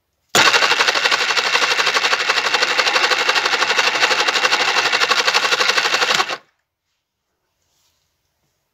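Belt-driven rope-making machine running, spinning four flax yarns on its hook to twist them into whipping twine, with a fast, even rattle. It starts abruptly about a third of a second in and stops abruptly around six seconds in.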